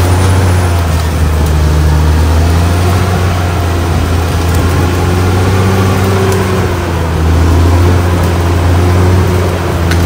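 Caterpillar D6R XL bulldozer's diesel engine running steadily under load as the blade pushes a pile of soil and brush, its note shifting slightly as the load changes.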